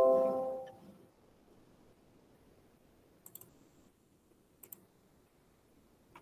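A computer notification chime that rings and fades over about a second, then computer mouse clicks in two quick groups, about three seconds in and again about a second and a half later.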